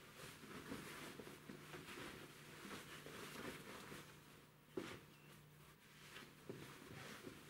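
Faint rustling and handling of flame-retardant welding-suit fabric as the trousers are pulled on, with two soft knocks about five and six and a half seconds in.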